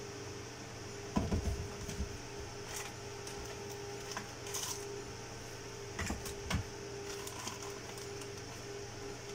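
Hands rummaging in a plastic parts box: small parts and the box clatter, with bunches of clicks and knocks about a second in and again about six seconds in. A steady background hum runs underneath.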